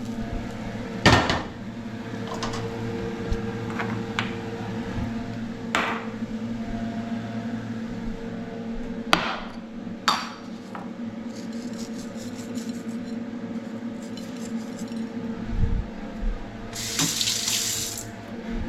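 Kitchen work sounds over a steady hum: several sharp knocks and clinks of dishes or utensils, and a short rush of water-like hiss near the end.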